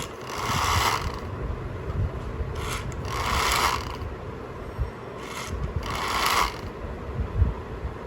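Toy RC car's small electric motor and gears whirring in three short bursts, each under a second, as the throttle is pulsed.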